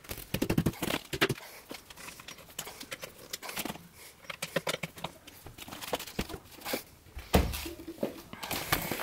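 Knocks, taps and scrapes of fibreboard furniture panels being handled and fitted together, with a heavier thump about seven seconds in as a panel is set down.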